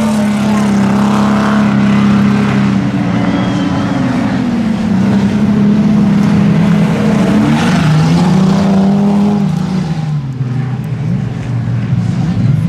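Speedway sedan engines running hard as the cars lap a dirt track, a steady drone whose pitch rises and dips as they accelerate and lift off. It eases slightly about ten seconds in.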